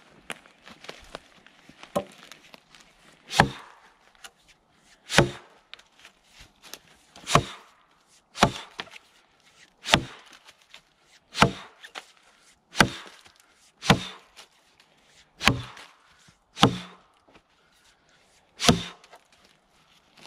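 Axe chopping into a felled log, about a dozen sharp, solid chops spaced roughly one to two seconds apart.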